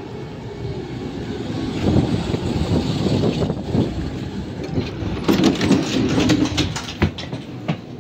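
ZiU-682 trolleybus pulling up at a stop with its folding doors open, then a run of sharp knocks and clatters about five to seven seconds in as a passenger climbs the steps aboard.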